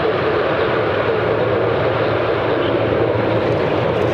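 Boeing 777-300ER's twin GE90 turbofan engines running loudly and steadily as the airliner rolls along the runway on its wheels.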